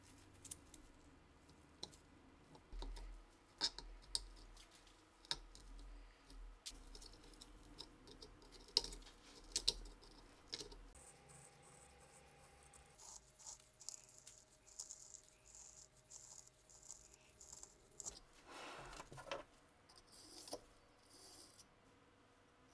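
Faint scraping and rattling with scattered sharp clicks: a twisted-wire bore brush being worked in and out of the rust-choked barrel of a Walther P38 clamped in a vise.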